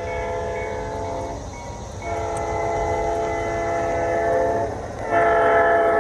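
Garden-railway model diesel locomotive's onboard sound system blowing its horn: one blast ends about a second and a half in, a long blast follows from about two seconds, and another starts near the end. Under it the train rumbles along the track, louder as it comes close.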